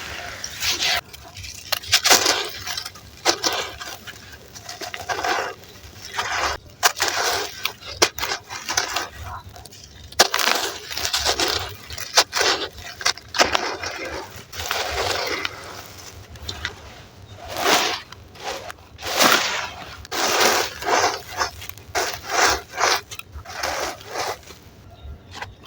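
Clumps of gritty red sand and charcoal crumbling and crunching, in irregular bursts of crackle with short pauses between.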